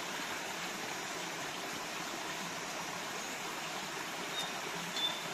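Spring water running steadily, an even rushing sound. A few faint, short high chirps come in near the end.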